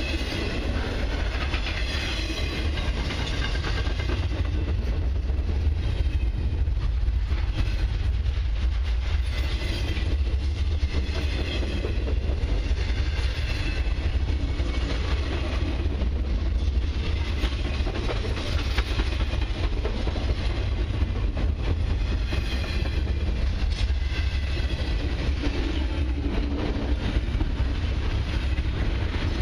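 Long freight train of TTX intermodal well cars rolling steadily past: a continuous low rumble of steel wheels on rail, with repeated clicks of wheels passing over rail joints.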